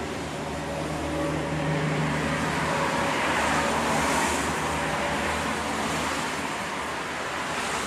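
Road traffic at a roadside bus stop: a motor vehicle's engine hums steadily, and a rush of noise swells about three to five seconds in as traffic goes by.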